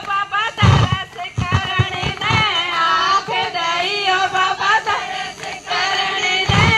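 A woman singing a Hindi devotional song (bhajan) into a handheld microphone, amplified through a loudspeaker. A few low thumps come under the singing, about a second in, shortly after, and again near the end.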